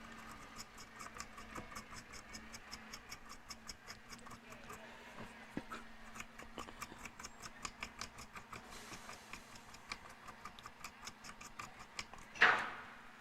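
Quick rhythmic scrubbing strokes, about four to five a second, of a small brush cleaning flux off a circuit board around a freshly soldered button; the scrubbing stops about nine seconds in. Near the end comes one short, loud burst that fades quickly.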